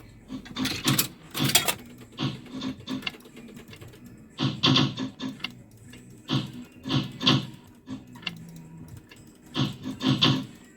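Clusters of clicks and clunks from a fruit machine being played, coming every second or two.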